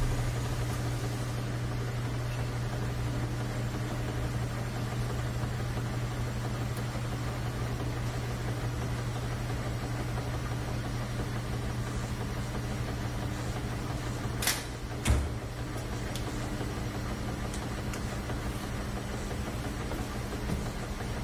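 A steady, low, engine-like hum runs without change. Two short sharp sounds, about half a second apart, come about two-thirds of the way through.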